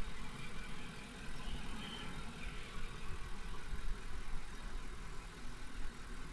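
A vehicle engine idling: a low, uneven rumble with no sharp events.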